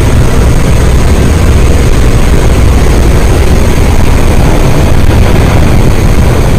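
Loud, steady rush of wind and propeller-aircraft engine noise through the open jump door of an aircraft in flight.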